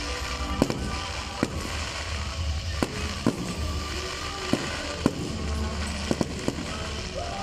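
Aerial fireworks shells bursting overhead in an irregular string of sharp bangs, about a dozen over several seconds, over a steady low rumble.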